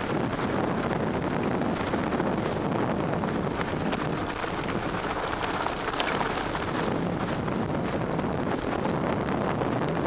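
Wind buffeting the microphone over the rumble of big fat tires rolling fast down a gravel road. Small rattles from the rigid, unsuspended bike and its handlebar camera mount run through it.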